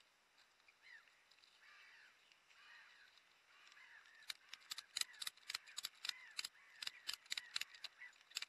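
Ratchet strap being tightened to hold a log on a sled: a quick series of sharp metallic clicks, about four a second, starting about four seconds in. Faint birdsong runs underneath.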